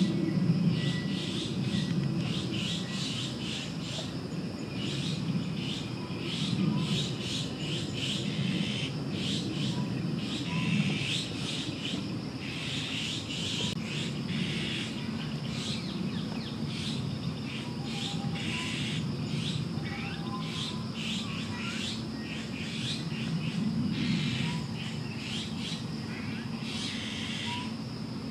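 Small birds chirping rapidly and continuously, over a low background murmur.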